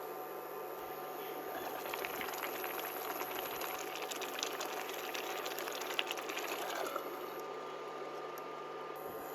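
Liquid splashing and trickling in a cup for about six seconds, stopping about seven seconds in.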